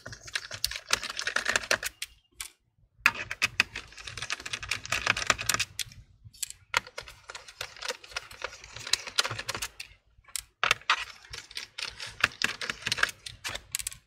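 A Phillips screwdriver backs the screws out of a laptop's bottom cover: runs of rapid light clicking and scraping, broken by a few short pauses between screws.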